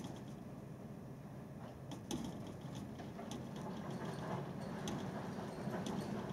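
Strong, typhoon-level gusting wind against a house: a continuous low rush that grows a little louder, with scattered small ticks and rattles.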